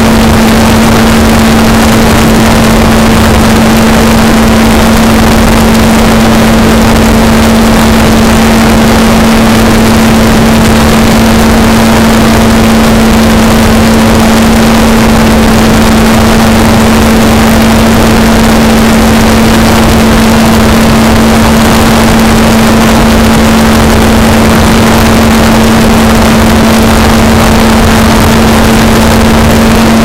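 Blade 360 CFX electric RC helicopter heard through its own onboard camera: a loud motor-and-rotor hum held at one steady pitch, buried in heavy wind rushing over the microphone.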